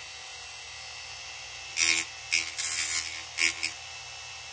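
Dremel rotary tool with a cutting disc running on its lowest speed. From about two seconds in, several short rasping bursts as the disc cuts moulding flash off the edge of a plastic model kit part.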